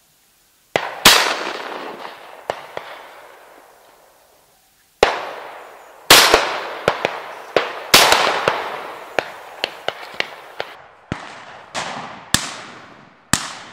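Shotgun shots at ducks in flight: about a dozen sharp blasts, some in quick pairs, each trailing off in a long echo, with smaller cracks in between.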